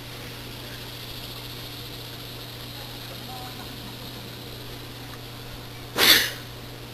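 Steady low hum and faint hiss, broken about six seconds in by one short, loud burst of noise.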